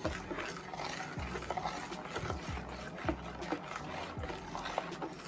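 A ladle stirring thick soursop juice in a stainless steel bowl: the liquid sloshes in irregular strokes, with small clicks where the ladle touches the bowl.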